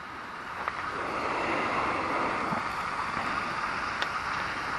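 Steady rushing outdoor background noise, a little louder after the first second, with a faint tick about four seconds in.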